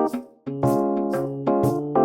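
Background music: piano chords struck in a steady rhythm, about two a second, with a short gap near the start.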